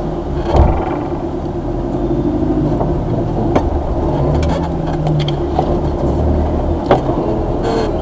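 Off-road 4x4's engine running steadily at low speed, heard from inside the cab, swelling slightly about halfway through. A few short knocks and rattles come through as the vehicle crawls over the rough track.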